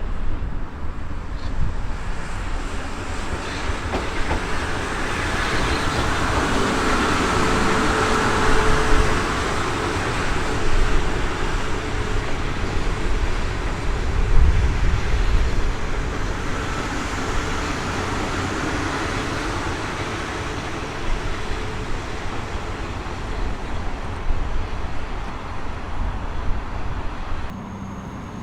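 A train running through the station, its rumble and wheel noise swelling to a peak about a quarter of the way in, then slowly dying away.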